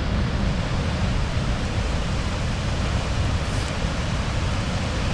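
Strong wind buffeting the microphone: a steady rushing noise with a heavy, fluttering low rumble.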